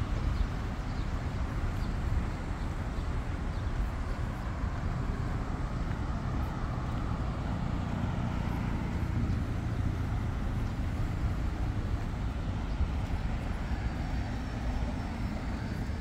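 Outdoor street ambience: a steady low rumble of traffic, with the noise of a passing vehicle swelling in the middle and fading away.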